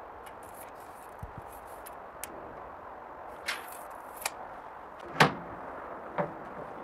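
A few light clicks and knocks over a steady background hiss, the loudest a sharp knock about five seconds in: a tape measure being handled against the steel barrel of a smoker.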